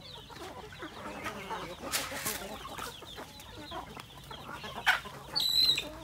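A flock of native chickens clucking and chattering softly as they peck at scattered feed. There is a brief rustle about two seconds in, and a short high-pitched call near the end.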